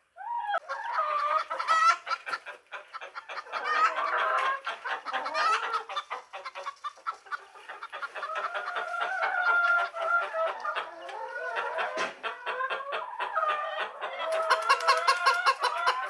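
Chickens clucking and calling: strings of short, rapid clucks mixed with longer drawn-out calls, and a quick run of clucks near the end.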